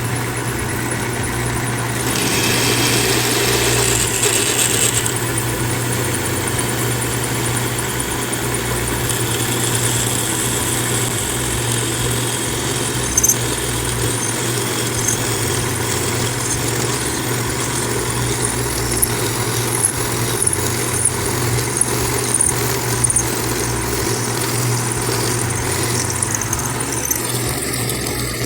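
Machine motor running steadily as a 10 mm drill bit bores out a metal bushing, the second and larger drilling after a smaller pilot hole. A higher-pitched cutting noise rises for a few seconds early in the run.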